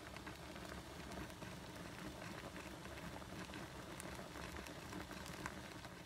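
Water boiling in a lidded steamer pot beneath steaming flounder: a steady bubbling crackle full of small pops, which drops away at the very end.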